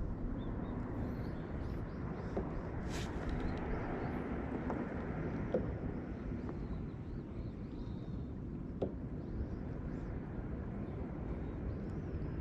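Steady low rumble of wind and water around a kayak at sea, with a few faint ticks scattered through it.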